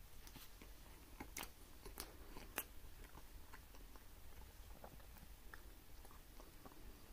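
Someone biting and chewing a cream-filled caramel éclair: faint mouth sounds with a few sharper clicks in the first three seconds, the loudest about two and a half seconds in, then softer ticks of chewing.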